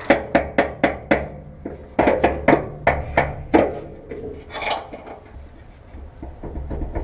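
Hand ratchet with a socket working a bolt: two runs of sharp metal clicks, about four a second, with a short pause between them.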